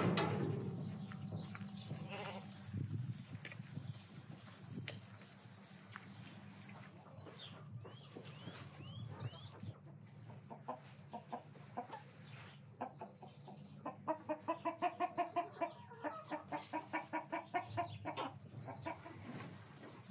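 Hens clucking in a fast run of short repeated calls, about four to five a second, in the later part. A few short, high, falling chirps come before them. It opens with a louder rustling noise.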